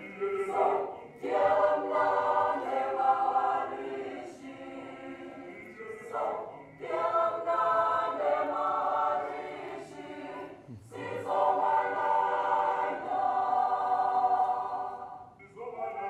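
A mixed choir of young men and women singing together in long held phrases, with short breaks about every four to five seconds.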